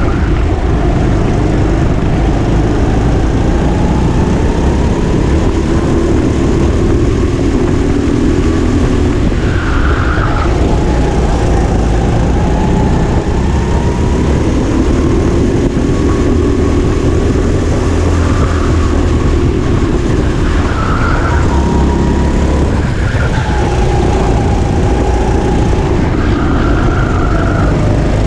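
Indoor rental kart's engine heard onboard, running loud and steady, its pitch rising and falling as the driver accelerates and lifts through the corners. A few short higher squeals come through, typical of tyres scrubbing in the turns.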